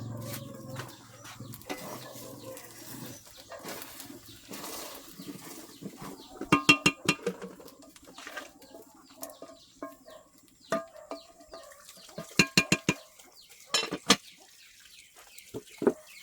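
Chickens clucking, with three quick runs of sharp clicks or taps that are the loudest sounds.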